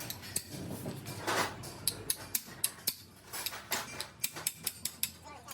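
Irregular light metallic clinks and taps, several a second: small steel parts and tools being handled and knocked together.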